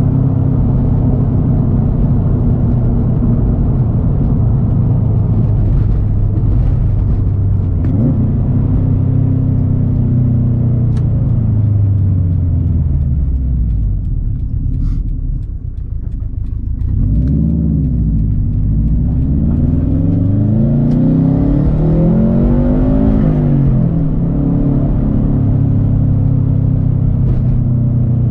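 2013 Subaru WRX STI's turbocharged flat-four engine running through a Tomei Expreme Ti titanium exhaust while driving: a steady drone that eases off with falling pitch about halfway, then climbs and drops in pitch several times through revs and gear changes before settling back to a steady drone.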